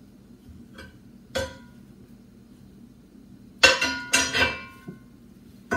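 Metal skillets and pans clanking against each other as they are handled and stacked: a single knock about a second and a half in, then a quick burst of clattering strikes with a brief metallic ringing about two seconds later.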